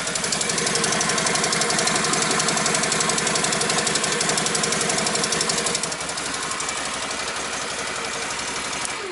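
Can-Am Outlander Max 570 ATV's Rotax 570 V-twin engine idling steadily, running evenly. The sound cuts off suddenly at the very end.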